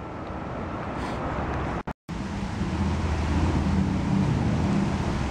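Heavy rain falling on a river's surface: a steady hiss with a low rumble under it. The sound cuts out for a moment about two seconds in, and the rain runs on after the break.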